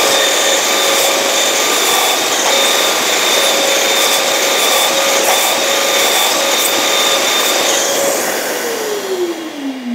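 Festool Kapex KS 60 sliding mitre saw running at a steady pitch while it makes a shallow trenching cut across a wooden block. About eight seconds in the trigger is released and the motor winds down in a falling whine.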